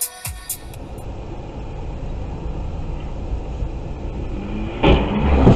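Car engine and road noise heard from inside the cabin, slowly getting louder, then a sudden loud bang near the end.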